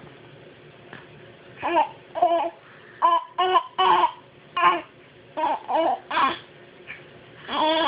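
A run of about ten short, pitched throat-clearing grunts, coming in quick irregular bunches over about six seconds.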